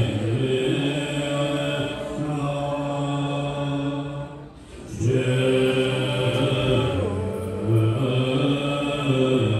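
Tibetan Buddhist mantra chanting in low, drawn-out vocal tones, with a short break for breath about four and a half seconds in.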